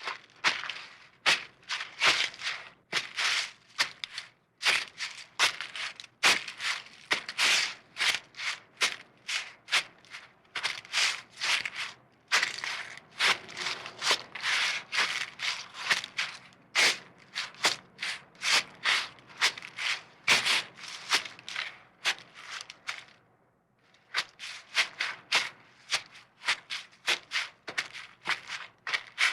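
Footsteps walking on a forest floor, about two steps a second, with a pause of about a second near the end.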